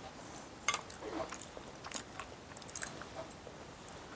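Toddler chewing a mouthful of food: quiet, wet mouth sounds with a few small clicks, the clearest a little under a second in.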